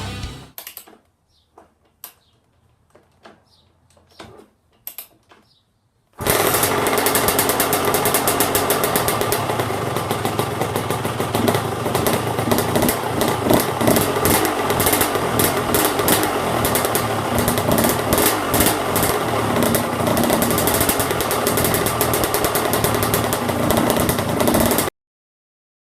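Suzuki RM125's single-cylinder two-stroke engine running on its freshly rebuilt top end. After a few faint clicks it starts abruptly about six seconds in and runs steadily until it cuts off suddenly near the end.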